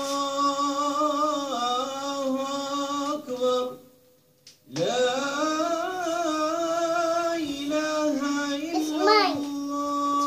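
Islamic call to prayer chanted by a single voice: long held notes with melodic ornaments, and a breath break about four seconds in. Near the end, rising-and-falling tones overlap the held note.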